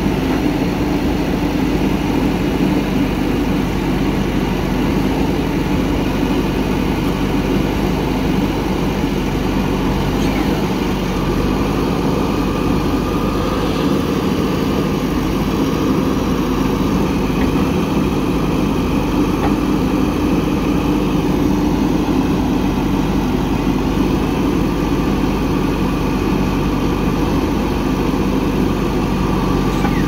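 JCB 3DX backhoe loader's diesel engine running steadily at a constant pitch while the backhoe arm digs and swings.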